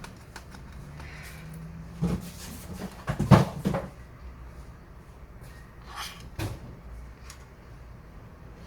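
Knocks and clicks of laptop parts and screws being handled during the disassembly of a Lenovo ThinkPad T410s. There is one knock about two seconds in, a loud clatter of several knocks about three seconds in, and two lighter clicks around six seconds in.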